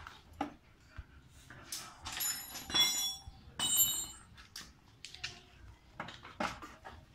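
Scattered clicks, rattles and knocks of parts and tools being handled in a motorcycle's underseat compartment. A cluster of sharper metallic clinks that ring briefly comes about two to four seconds in.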